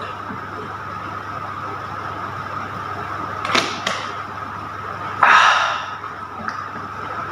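A plastic water bottle is drunk from and handled: two short clicks about three and a half seconds in, then a louder rustle lasting about half a second about five seconds in, over a steady hum.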